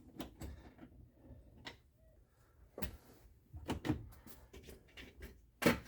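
Scattered clicks and knocks of hands and tools working on a car's plastic interior door panel during reassembly, about five in all, the loudest near the end.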